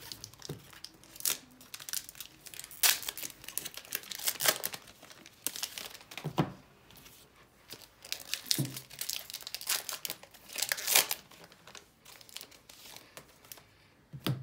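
Trading card packs being torn open by hand, their wrappers crinkling and tearing in irregular bursts.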